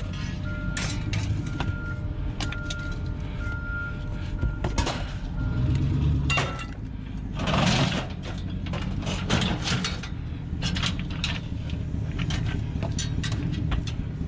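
A vehicle engine running steadily, with scattered sharp clinks and knocks. There is a short hiss about seven seconds in.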